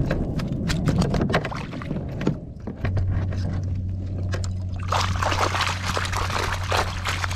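Water pouring and splashing off a mesh keep net as it is hauled out of the lake, starting a little past halfway through. Before that come small clicks and rustles from the net being handled. A steady low hum sets in about three seconds in.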